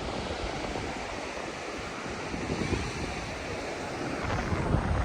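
Sea surf washing steadily on the shore, with wind on the microphone that gusts harder near the end.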